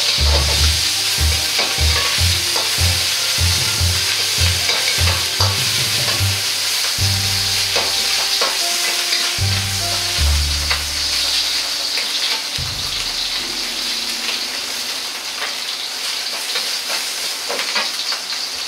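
Minced meat sizzling in hot oil in a wok, with a metal wok ladle scraping and clicking against the wok as it stirs.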